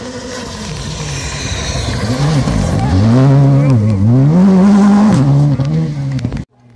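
Rally car on a gravel stage approaching and passing close by at speed, its engine revs rising and dropping several times through gear changes. It is loudest about three to five seconds in, with short crackles as it goes by, and the sound cuts off abruptly near the end.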